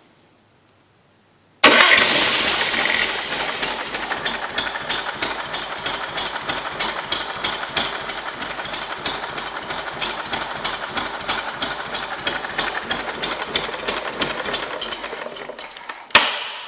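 Albin O-21 vintage marine engine starting about a second and a half in, then idling slowly with each firing beat heard separately, about four a second, and stopping near the end. It is being test-run after its ignition was repaired and its starter motor rebuilt.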